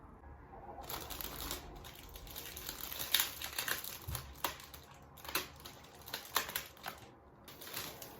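Irregular crackling and clicking of something being handled close by, with short pauses.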